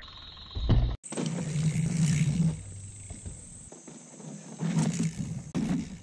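Mountain bike riding a dirt trail: tyres rolling and scraping over dirt, with a loud thump about a second in and a few shorter knocks near the end as the rear wheel skids past, spraying dirt.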